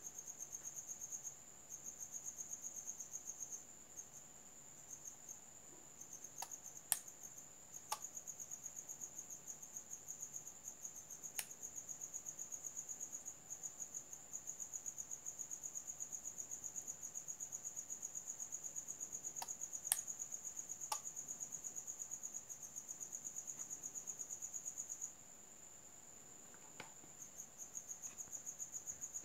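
Cricket chirping in a fast, even pulsing rhythm, pausing twice briefly. A few sharp clicks stand out, the loudest about seven and twenty seconds in.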